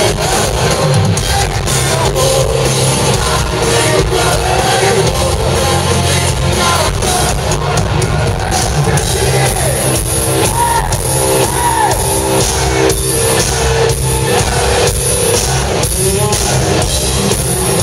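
Live hard rock band playing loud: electric guitars, bass and drums with vocals, heard from within a concert crowd.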